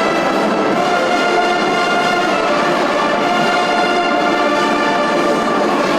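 Wind band, brass to the fore, playing long held chords at an even, full level.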